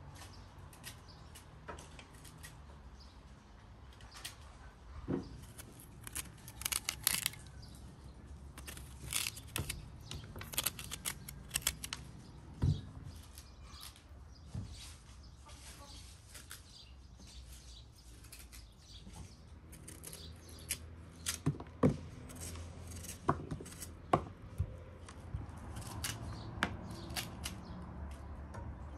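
Small knife cutting and peeling firm raw quinces by hand: irregular crisp slicing and scraping sounds, with a few sharper knocks scattered through.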